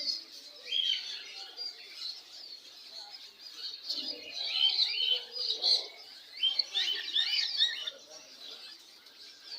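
Many caged songbirds of mixed kinds chirping and twittering at once, a dense overlapping chorus of short high calls that is busiest a little past the middle.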